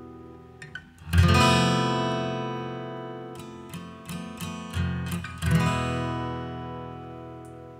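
Acoustic guitar music: a strummed chord about a second in, left to ring and fade, a few quick plucked notes, then another strummed chord past the five-second mark that rings out.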